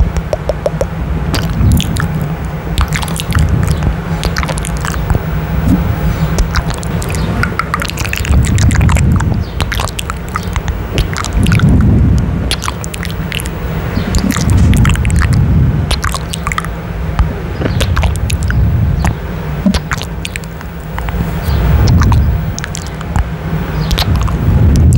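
Close-up kissing and lip-smacking right on a microphone grille: a steady stream of wet clicks and smacks, with deep muffled swells every few seconds as the mouth presses on the mic.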